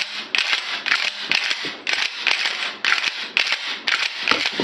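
Pump-action 12-gauge shotgun of the Mossberg 500 / Maverick 88 type being racked over and over: rapid sharp metallic clacks as the fore-end slide is worked back and forth, cycling shells through the action.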